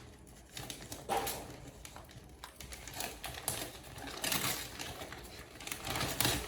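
Gift packaging being handled and opened: irregular rustles, crinkles and small clicks, louder about a second in and again around four and six seconds.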